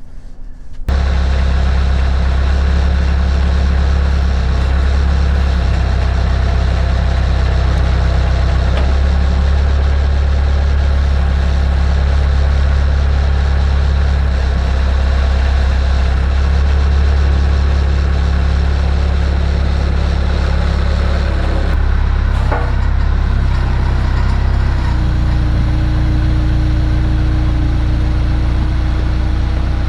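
Bobcat skid steer loader's engine running steadily, close up. It comes in suddenly about a second in, and a steady higher tone joins it near the end.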